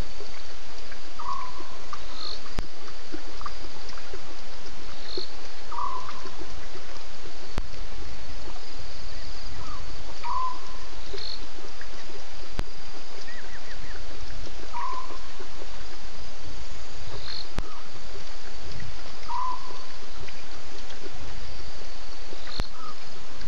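Night-time waterhole ambience. Short animal calls repeat about every four to five seconds, with a higher, shorter call between them, over a steady hiss and a faint high insect trill.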